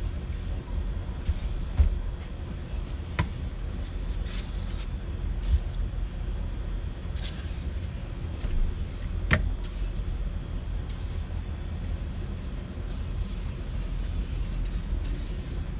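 Cleaning with glass cleaner and a rag: short hissy swishes of wiping or spraying, several times, and two sharp clicks, over a steady low rumble.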